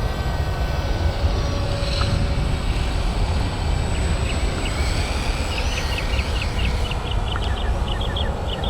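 Wind buffeting the microphone in a steady low rumble, over the faint high whine of an electric RC model plane's motor as it comes in to land. A string of short, high ticks runs through the second half.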